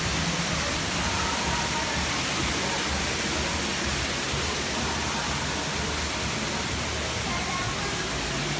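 Steady rush of falling and flowing water on an indoor theme-park boat ride, with faint voices underneath.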